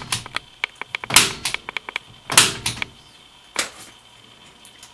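Plastic-insulated Cat6 wires rustling and clicking as they are untwisted and straightened between the fingers: quick small ticks, with louder scraping swishes about once a second.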